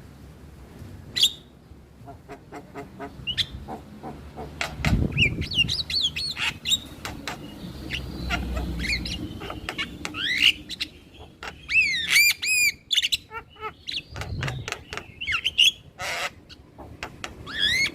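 Male Javan myna (jalak kebo) singing a varied run of harsh squawks, rapid clicks and whistled rising notes.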